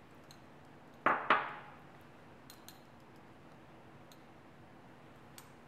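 Two sharp clinks in quick succession about a second in, each with a short ring: a glass honey jar set down on a stone countertop. A few faint small taps follow.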